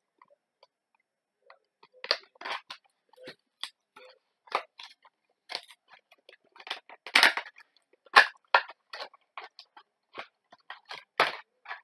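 Clear plastic blister pack of a toy being pried open by hand: irregular sharp crackles and crinkles of the plastic, starting about a second and a half in.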